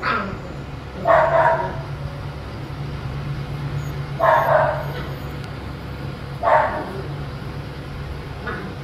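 Dogo Argentino puppies, about six weeks old, barking in short yappy bursts as they wrestle in play: one right at the start, then louder ones about one, four and six and a half seconds in, and a small one near the end.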